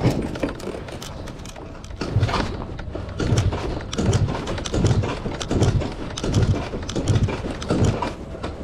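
A Yamaha Jog Aprio Type II scooter's small two-stroke engine is cranked over by kick-starter and electric starter together. After a single knock at the start, it turns over in a run of about eight strokes, one every three-quarters of a second, without catching. The engine is hard to start even with an upgraded battery.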